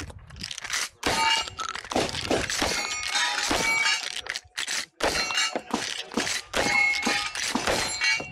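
Rapid gunfire from a pump-action shotgun, its slide racking between shots, with steel targets ringing when hit.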